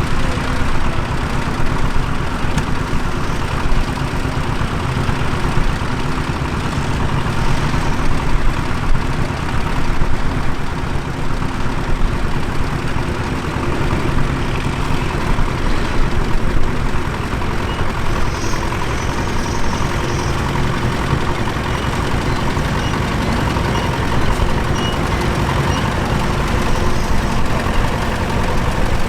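Tractor engine running steadily, a close, even rumble.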